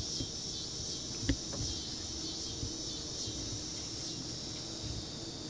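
Steady chorus of insects, an unbroken high buzzing, with a single short knock about a second in.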